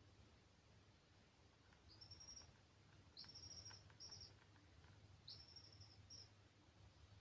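Baby chicks peeping faintly: four high peeps in the middle stretch, each rising quickly and then held, over a low steady hum.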